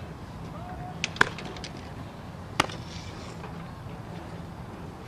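Sharp knocks of a softball striking, two close together about a second in and one more about a second and a half later, over a steady faint outdoor background.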